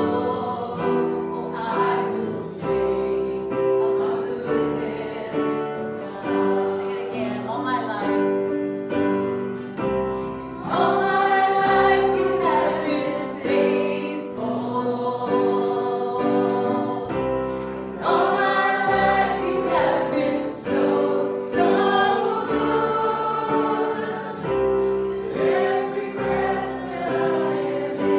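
A group of voices singing a gospel hymn, with long held notes.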